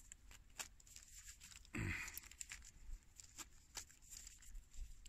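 Zipper on a fabric survival-belt pouch pulled slowly around in small tugs, with faint clicks and a short rasp about two seconds in. The zipper is binding on the bag inside.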